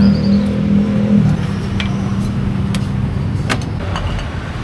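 A motor vehicle's engine running close by, cutting off about a second in, over steady street traffic noise. Several sharp metal clinks of a ladle against a noodle cart's broth pot are heard later.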